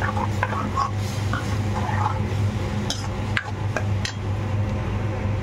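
Steel spoon stirring and scraping a thick onion-tomato masala paste in a metal pan, with a few sharp clinks of spoon on metal, over a steady low hum.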